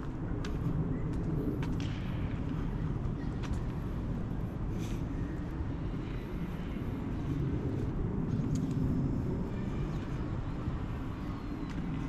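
Street ambience recorded while walking: a steady low rumble of road traffic, swelling about a second in and again around eight seconds, with a few faint clicks.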